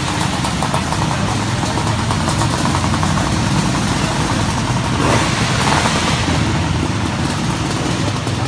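Race car engines running steadily and loudly, swelling slightly about five seconds in.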